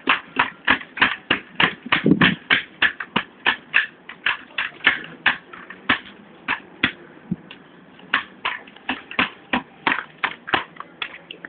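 A rapid run of sharp, even clicks, about three a second, thinning out near the end.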